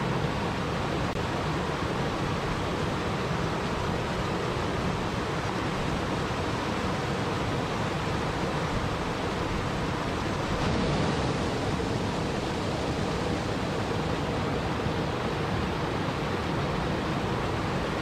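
Waterfall running steadily: an even rush of falling water with no breaks or changes.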